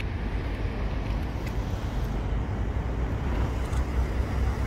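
Steady roadside traffic noise with a heavy low rumble.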